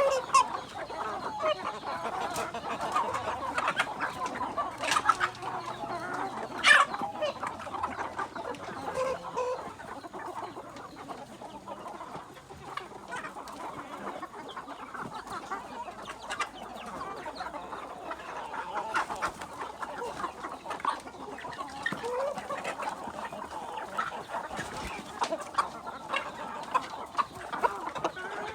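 A flock of kampung × Bangkok crossbred chickens clucking continuously, many calls overlapping. A few sharp clicks or knocks sound among them, the loudest about seven seconds in.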